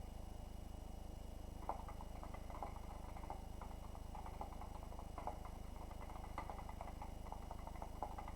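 Scattered light clicks and taps at an irregular pace over a steady low electrical hum.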